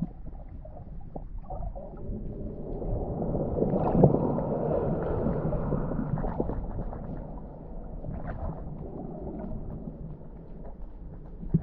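Muffled underwater rushing of ocean surge heard through an underwater camera, swelling louder about four seconds in and easing off again, with scattered faint clicks and knocks.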